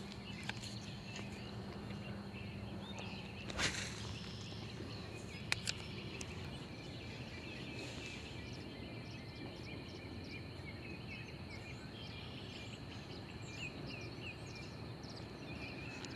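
Quiet lakeside outdoor ambience: a steady faint hiss with many small, high wildlife chirps scattered throughout. One dull knock comes about three and a half seconds in.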